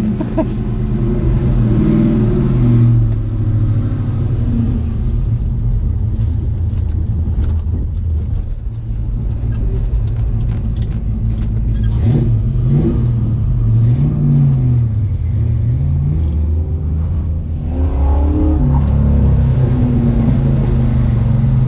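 Fuel-injected 5.0 (302) V8 of a car with a five-speed manual running under way, its pitch rising as it accelerates and falling back several times with the gear changes, with a short drop and pick-up about 17 seconds in.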